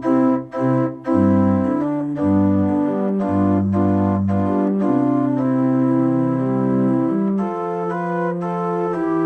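Organ playing a closing voluntary: a few short detached chords at the start, then sustained chords changing every second or so.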